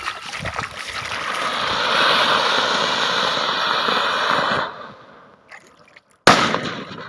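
Water splashing and rushing, fading out just under five seconds in, followed by one sharp knock about six seconds in.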